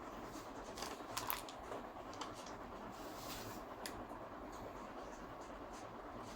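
Steady hiss of rain with a few light scratching and rustling sounds, the clearest about a second in and again near four seconds.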